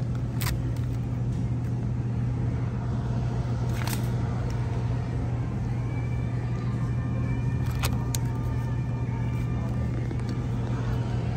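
Steady low hum of supermarket refrigeration beside an open refrigerated produce case, with a few short clicks of plastic berry clamshells being handled.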